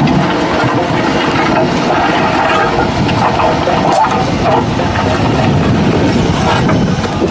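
Heavy diesel forestry machine running under load while it drags a spiked-disc trencher whose steel discs tear through soil and roots, with scattered knocks and rattles over the steady engine noise.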